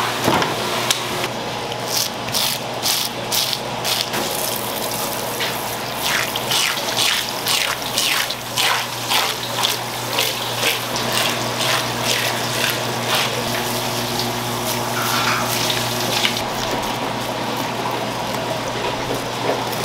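Tap water running onto a whole salmon as it is rinsed, with a quick series of short strokes through the first half, over a steady low hum.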